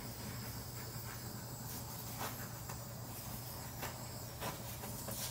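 Quiet room tone: a steady low hum and an even high hiss, with a few faint ticks about two seconds in and near the end.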